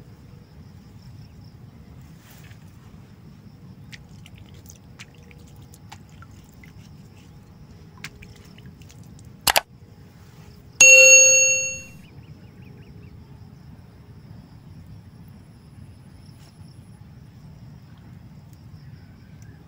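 A single sharp click, then about a second later a bright bell ding that fades out over about a second: the click-and-bell sound effect of a subscribe-button animation. Steady low background noise runs underneath.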